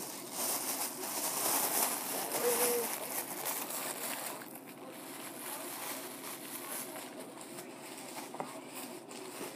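A person eating a sandwich close to the microphone: irregular chewing and handling noises, busiest in the first few seconds.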